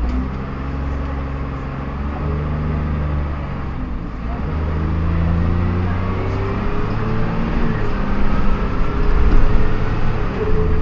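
Dennis Dart bus under way: the engine pulls and its note shifts in steps, with a rising gear whine climbing through the middle of the run, an odd whining noise from the driveline.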